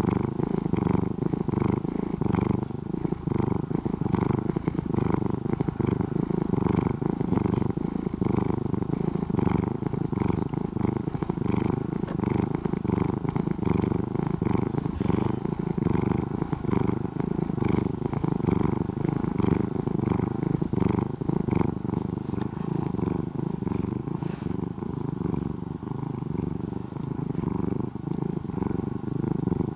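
Orange-and-white cat purring right against the microphone: a steady low rumble that pulses evenly with each breath in and out.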